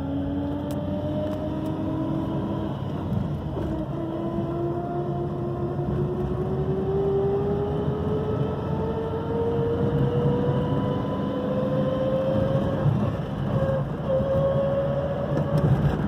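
Chevrolet Celta 1.0 gearbox howling while the car drives, heard from inside the cabin over the engine and road noise. A clear whine climbs steadily in pitch as the car gathers speed, with a small step up about four seconds in. It is the ronco of a final-drive pinion fitted without its matching crown wheel, a noise typical of this small 15-tooth pinion in the 1.0 Corsa and Celta.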